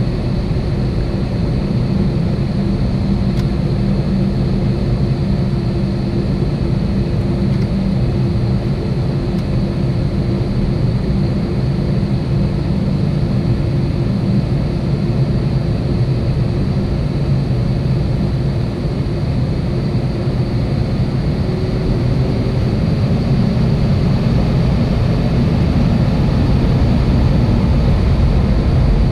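Airbus A320 jet engines running at low thrust, heard inside the cabin over the wing as the airliner taxis onto the runway. It is a steady, deep hum with a couple of held tones, growing a little louder near the end.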